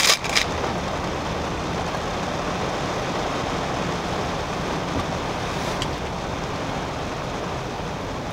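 Steady, even background noise heard inside a car's cabin. A plastic ice-bar wrapper crinkles briefly at the very start.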